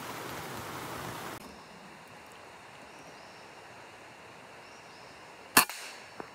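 A single sharp shot from a scoped hunting rifle about five and a half seconds in, at a squirrel sitting on a branch. A fainter knock follows a split second later.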